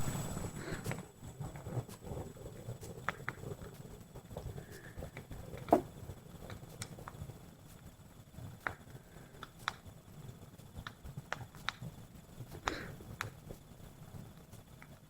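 Wood campfire crackling, with irregular sharp pops and snaps over a faint low rustle.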